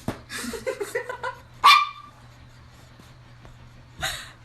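A dog barking: a few quieter short calls, then one loud, sharp bark about halfway in. A brief noisy burst follows near the end.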